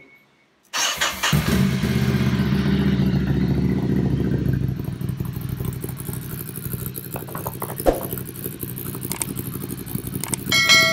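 A 2020 Ducati Scrambler Icon's air-cooled 803 cc L-twin starts up suddenly less than a second in, breathing through a Termignoni SO01 carbon-tip slip-on with the dB killer removed. It idles high and loud for about four seconds, then settles to a lower, quieter idle.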